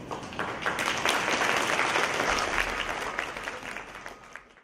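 Audience applauding at the close of a talk, swelling within the first second, then thinning and fading before cutting off abruptly.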